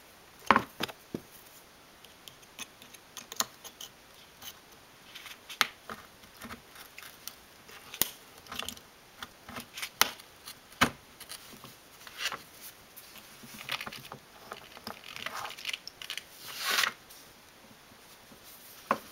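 Craft-knife blade clicking and scraping against the metal case of an iPod Classic as it is worked into the seam to pry the case apart: scattered sharp ticks and clicks, with a longer scrape near the end.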